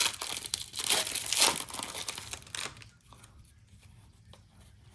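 Plastic wrapping on a trading-card blaster box or its card packs being torn open and crinkled, with loud rustling for the first two and a half seconds. Then quieter handling with a few faint clicks.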